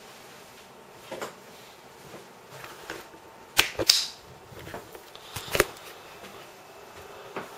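Camera handling noise: scattered knocks, bumps and rustles as a hand-held camera is picked up and carried, the loudest about halfway through, over a steady faint hiss.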